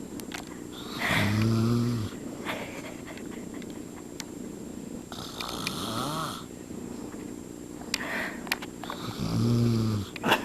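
A man snoring in his sleep: two loud, deep snores about eight seconds apart, with a softer breathy snore between them.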